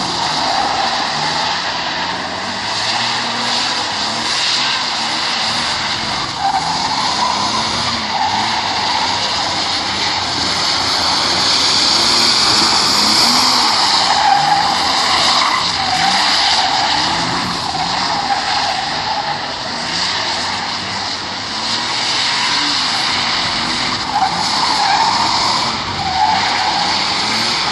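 BMW E36 saloon drifting on wet asphalt: its engine revs up and down again and again, over a steady hiss of tyres sliding on the wet surface.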